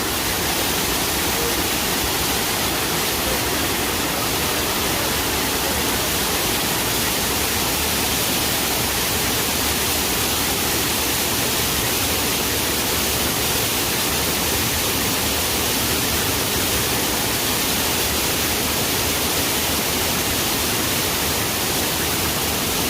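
Waterfall rushing steadily, its water pouring down over rock.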